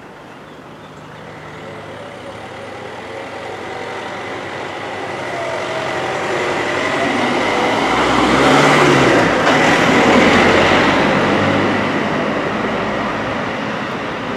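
A vehicle passing close by: the sound builds steadily for about eight seconds, is loudest a little past the middle, then eases off.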